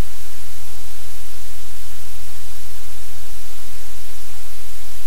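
Loud, steady static hiss with a deep electrical hum underneath, unchanging throughout.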